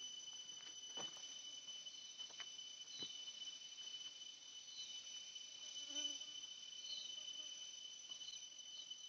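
Insects trilling steadily in one high, unbroken tone, with faint short chirps that come more often near the end and a few soft clicks.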